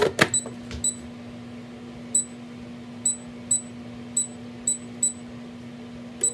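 Gourmia digital air fryer: the basket drawer is pushed shut with a knock and a short clatter, then the touch-control panel gives about nine short high beeps as the cooking time and temperature are set. A steady low hum runs underneath.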